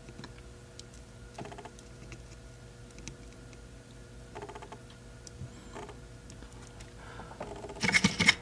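Soft clicks and ticks of small hand tools handled at a workbench over a faint steady hum, with a brief louder clatter near the end.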